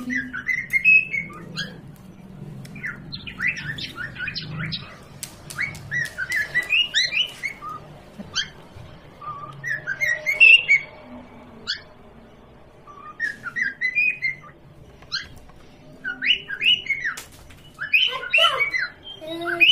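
Pet parrot chirping and squawking in short bursts of quick rising and falling calls, with brief pauses between the bursts.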